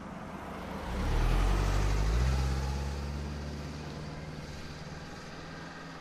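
A car driving past close by: engine and tyre noise builds to its loudest about a second or two in, then fades away as it moves off.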